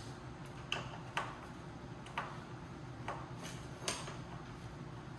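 Scattered light clicks and knocks, about eight over a few seconds and unevenly spaced, of small hard parts being handled during a teardown, over a steady low hum.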